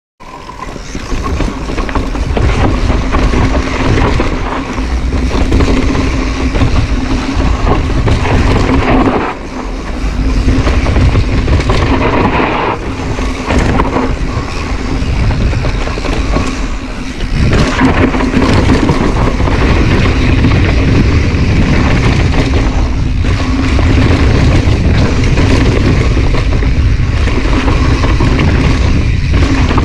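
Mountain bike riding a dirt trail, heard from a GoPro mounted on the rider or bike: wind buffeting the microphone over tyre and rattle noise from the trail. A steady hum runs under it, with a few brief dips.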